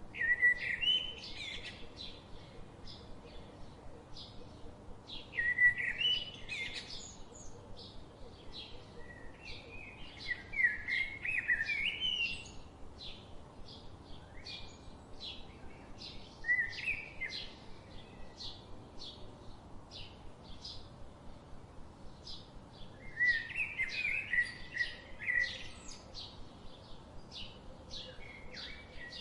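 Songbirds singing: one bird repeats a short high chirp steadily, about three times a second, while another sings louder warbling phrases every few seconds, five times in all.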